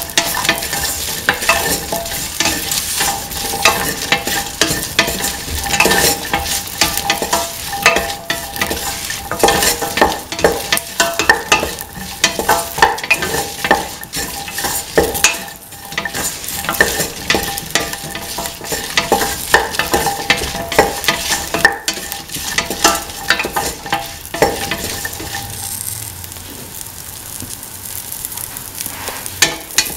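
Okra, shallots, garlic and dried red chillies sizzling in oil in a stainless steel pan, with a spatula scraping and clicking against the pan as they are stirred. The scraping thins out in the last few seconds, leaving mostly the sizzle.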